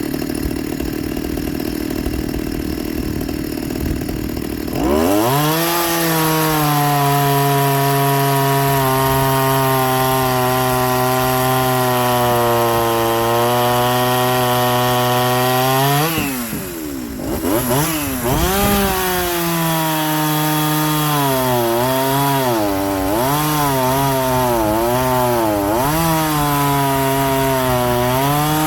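Two-stroke chainsaw running at low speed, then opened up to full throttle about five seconds in and held steady for about ten seconds. After a brief drop it comes back up and runs with its pitch dipping and recovering over and over, as when the chain is cutting into wood under load.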